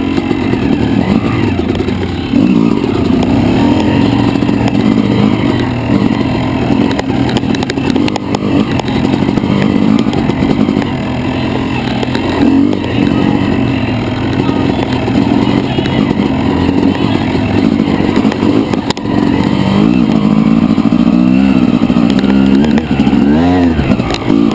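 Yamaha YZ250 two-stroke dirt bike engine being ridden, its pitch rising and falling with the throttle, with a run of quick revs up and down near the end.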